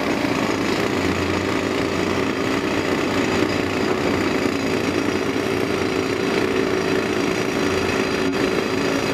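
Heavy diesel engines of a Caterpillar 385B L excavator and a tipping dump truck running steadily.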